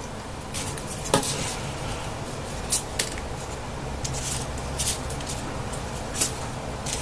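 Paper rustling with a few crisp clicks at irregular moments as folded paper triangle units are pushed into place on a 3D origami model, over a steady low hum.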